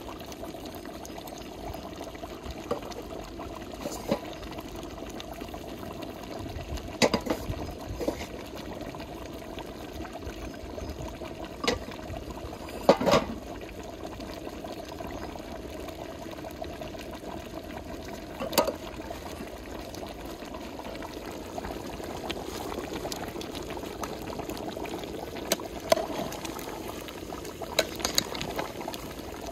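Chicken and broth simmering in a large metal cooking pot, a steady bubbling, with a few short sharp clinks and knocks scattered through it, the loudest about halfway.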